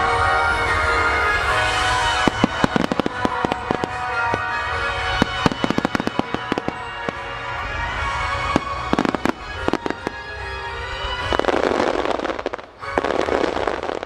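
Fireworks display firing a rapid string of sharp reports and bursts, with two dense stretches of crackling near the end. Music plays throughout.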